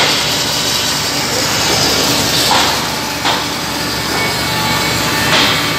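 CNC contour saw's narrow blade cutting through a clamped stack of timber boards as the feed carriage moves the stack, a steady saw-and-machine noise. Brief louder scrapes come about two and a half, three and five and a half seconds in.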